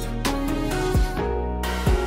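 Background music with a beat: low drum hits under sustained pitched notes.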